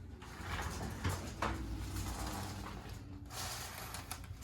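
Rustling and shuffling of a body and clothing shifting on a padded treatment table, with two soft knocks a little after one second in.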